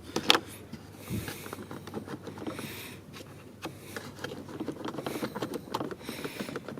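Relays being pulled from and pushed back into a truck's fuse box, the fuel pump and horn relays being swapped: a sharp plastic click just after the start, then small irregular clicks and rattles of handling.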